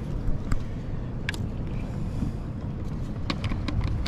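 A few small clicks and taps as a fishing rod is fastened into a rod holder with its strap, coming thicker near the end, over a steady low background rumble.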